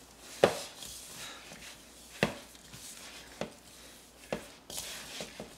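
Hands squeezing and pressing crumbly alfajores cookie dough into a ball in a plastic mixing bowl: soft rustling and crumbling, broken by about five sharp knocks as the bowl is handled.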